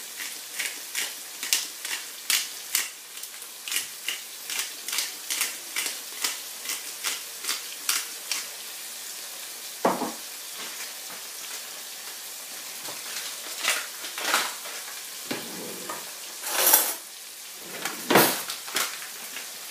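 Onions and bell peppers frying in oil in a pan: a steady sizzle with sharp crackling pops, frequent for the first half and sparser after. There is a dull knock about halfway through and two louder pops near the end.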